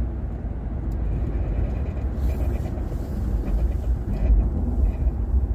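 A moving car's road noise heard from inside the cabin: a steady low rumble of engine and tyres.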